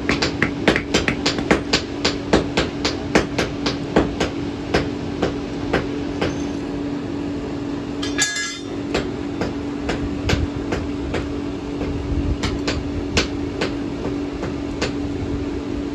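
Hand hammer beating a thin iron rod on a small steel anvil: sharp metallic strikes about three a second that slow and thin out over the first six seconds, forging the rod for an iron ring. After a short break near the middle only scattered clinks follow, over a steady low hum.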